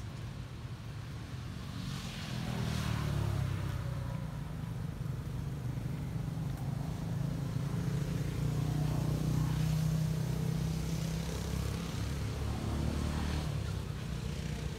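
Low rumble of a motor vehicle's engine running nearby, growing louder about two seconds in and easing off near the end.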